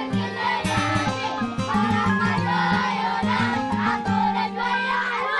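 Folk-style music with several voices singing together over a steady beat.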